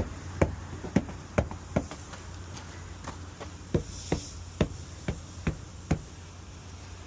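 A series of sharp knocks, about two a second: five in the first two seconds, then a pause, then about six more from nearly four seconds in.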